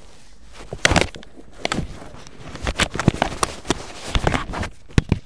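Irregular clicks, knocks and rustling from people moving about in the seats of a stationary car, with the engine not running.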